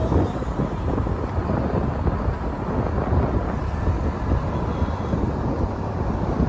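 Wind buffeting the microphone on a moving motorcycle, a steady low rumble of wind and road noise.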